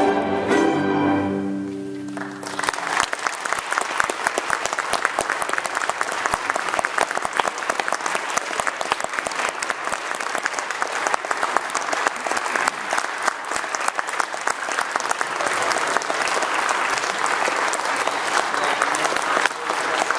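Bowed strings, cellos among them, hold a final chord that dies away about two seconds in. Then an audience applauds, many hands clapping.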